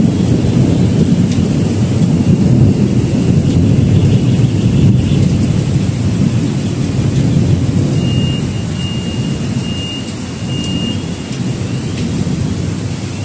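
Thunderstorm: a long roll of thunder rumbling over heavy rain, dying away over the last few seconds.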